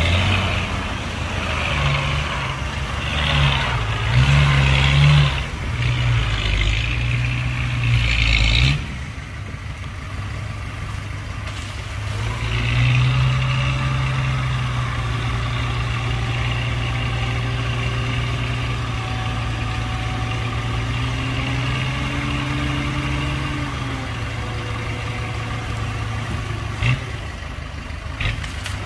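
Hyundai dump truck's diesel engine revving unevenly as the loaded truck manoeuvres, dropping back about nine seconds in. From about twelve seconds in it is held at steady raised revs while the hydraulic hoist tips the bed up, easing off near the end. A couple of short knocks come near the end.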